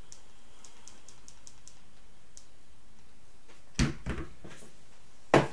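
A run of light, quick clicks for the first couple of seconds, then a few louder knocks close together and one sharp knock, the loudest, near the end.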